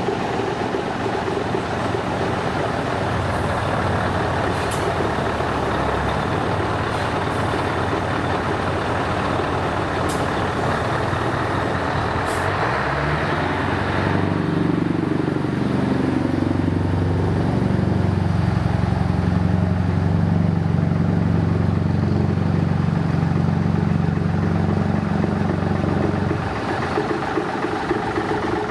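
Scania 143H tractor unit's 14-litre V8 diesel running as the truck drives past, its note rising and getting louder about halfway through as it pulls away under power, then dropping off near the end. A few short, sharp sounds in the first half.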